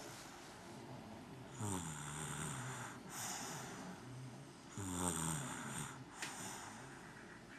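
A baby snoring through a nose blocked by a cold: two snoring breaths about three seconds apart, each falling in pitch, with shorter snuffles between.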